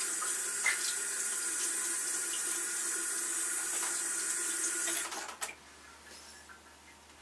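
Bathroom sink faucet running, water splashing into the basin as hands are wetted under the stream. About five seconds in the tap is shut off with a couple of clicks, and the water stops.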